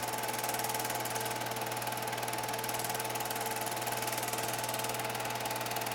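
Bell & Howell 1623 Dual 8 film projector running: steady motor hum with the rapid, even clatter of the film-advance mechanism.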